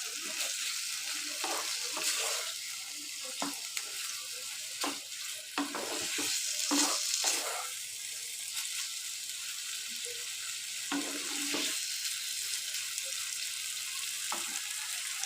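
Marinated chicken and onions sizzling in hot oil in a pan. A spatula knocks and scrapes against the pan now and then as it is stirred.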